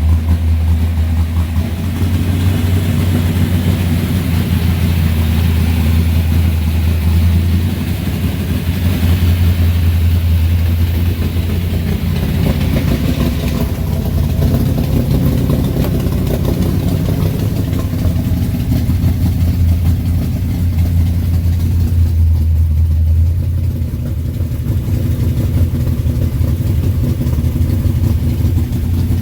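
1972 Dodge Charger's big-block Mopar V8 idling through its new exhaust. The engine speed shifts slightly a few times.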